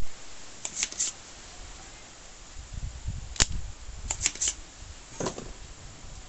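Sharp clicks and taps of tools handled on an electronics workbench: a soldering iron set into its stand, then small knocks in clusters of three, with a dull low rumble of handling in the middle.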